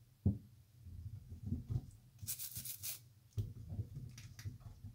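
Hands moving beetroots around in a bowl of water in a stainless-steel sink: soft knocks and small splashes, with a short rustling swish a little over two seconds in.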